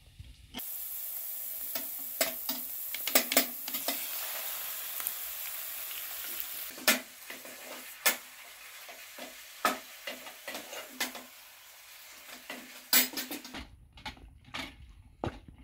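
Diced chicken sizzling in a hot metal pot while a wooden spatula stirs it, scraping and knocking against the pot. The sizzle is strongest for the first several seconds, then dies down.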